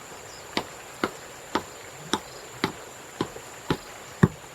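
A hand tool striking again and again at an even pace, about two blows a second, the last blow near the end the loudest.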